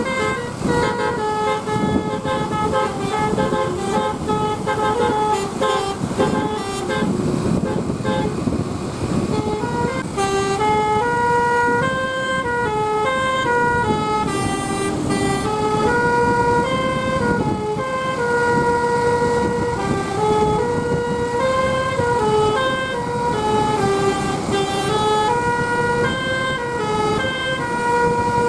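A bus's Basuri multi-tone telolet horn playing a tune of held notes that step up and down in pitch every half-second or so, over the low rumble of the moving bus.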